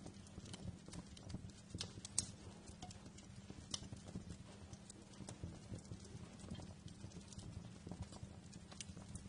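Wood fire in a fireplace crackling: irregular sharp pops and snaps over a low steady rumble, with the strongest pop about two seconds in.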